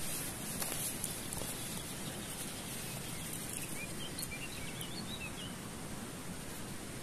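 Steady outdoor background hiss with a short run of faint, high bird chirps around the middle.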